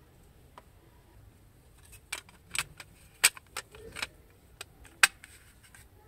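Hard plastic clicks and clacks from a TV remote control's case halves being handled and snapped together. The sharp clicks come in an irregular cluster starting about two seconds in and stop about a second before the end.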